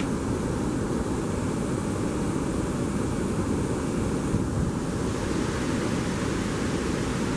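Steady, unbroken rushing of water pouring through river sluice gates.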